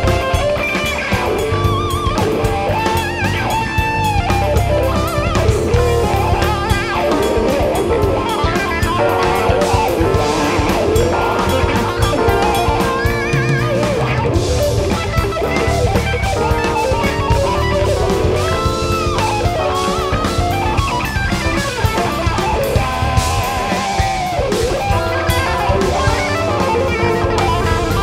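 Live rock band: a Vola signature electric guitar plays fast lead lines with wavering vibrato and pitch bends over electric bass guitar and a drum kit.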